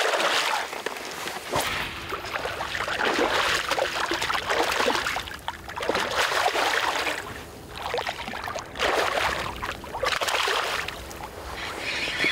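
Water splashing and sloshing beside a boat as a released zander drops into the river and thrashes at the surface. The noisy splashes come in several surges, the first right at the start and another about six seconds in.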